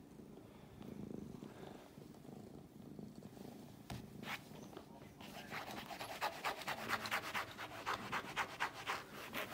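Domestic cat purring close to the microphone. About halfway through, a rapid run of scratchy clicks and rustles joins the purring.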